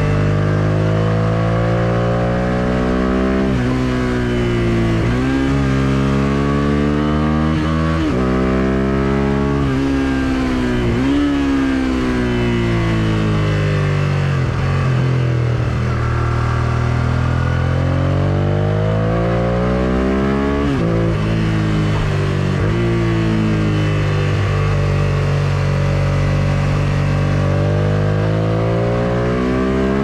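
1999 Suzuki SV650S's V-twin through an Akrapovic full exhaust, pulling hard through the gears: the engine note climbs and drops sharply at each upshift, runs down on the overrun for a few seconds about halfway through, then climbs through the revs again. Wind rush over the rider underneath.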